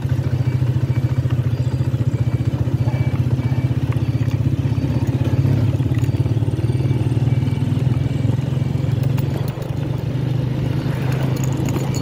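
Motorcycle engine running steadily under way, with a fast, even pulse, easing off slightly near the end. A faint high beep repeats about once a second.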